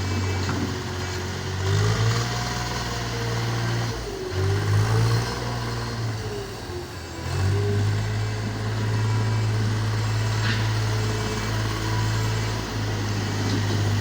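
A heavy engine running steadily, its pitch wavering up and down as the load changes, with the low hum easing briefly twice.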